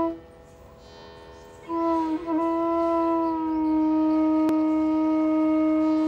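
Background music: a solo flute. It breaks off at the start, then comes back in about two seconds later on one long held note.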